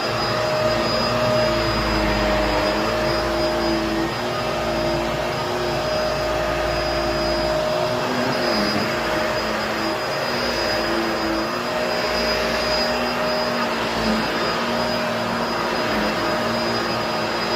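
Vacuum cleaner running steadily: an even rushing hiss with a motor hum that wavers slightly in pitch and a faint high whine.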